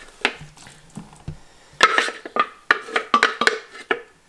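Wooden spoon scraping and knocking inside a plastic food processor bowl as minced abalone is emptied into a ceramic dish: a run of sharp clacks and scrapes, coming thicker in the second half.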